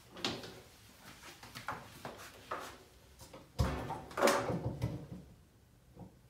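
Handling noise from a power cord being plugged into a wall outlet: scattered light knocks and rustles, then a louder clattering stretch of about a second and a half starting about three and a half seconds in.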